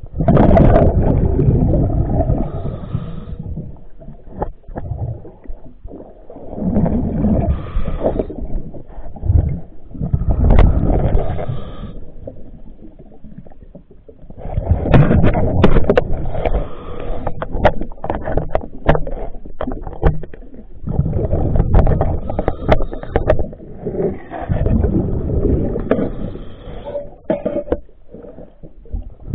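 Underwater scuba diver's exhaled breath bubbling out of the regulator in bursts every few seconds, with quieter stretches between breaths and scattered sharp clicks.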